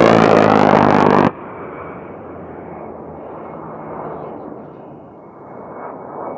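An A-10 Thunderbolt II's GAU-8 Avenger 30 mm rotary cannon firing a burst, a loud buzzing brrrt that cuts off suddenly about a second in. After it, the jet's twin turbofan engines run on much more quietly with a faint steady whine.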